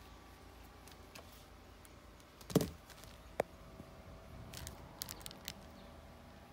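A few sharp knocks and clicks of handling: the loudest about two and a half seconds in with a short ring, a sharper click a second later, then a few lighter ticks, over a faint steady hum.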